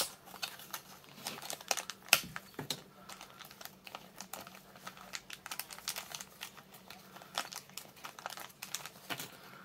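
Small clear plastic kit bag crinkling and crackling in the hands as it is opened and the plastic parts are worked out of it. The crackles are irregular, with the sharpest right at the start and about two seconds in.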